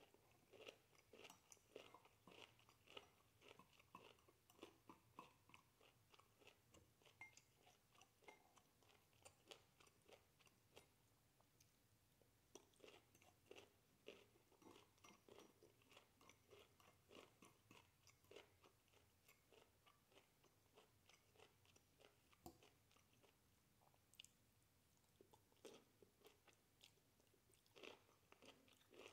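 A person chewing mouthfuls of broccoli: faint, quick, moist crunching in runs with short pauses between bites.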